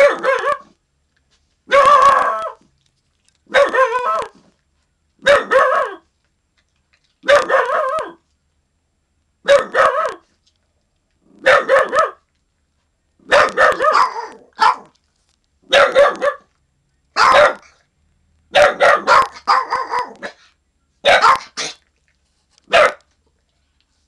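A small young dog barking in a guarding, alarm way at someone in the yard. The barks come in short clusters of quick barks, one cluster every one and a half to two seconds.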